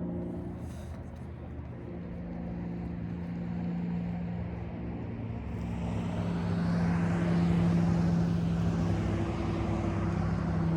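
Propeller airplane engine droning overhead, a steady hum that grows louder over the first seven or eight seconds.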